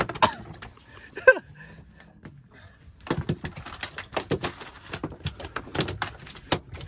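A single sharp knock about a second in, then from about three seconds in a rapid, irregular drumming of knocks: freshly landed mahi-mahi thrashing against the boat's deck.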